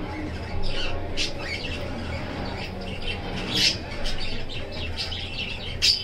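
Baby budgerigar chick giving short squawking begging calls in repeated bursts as it is fed from a syringe, louder ones about midway and near the end, over a low steady hum.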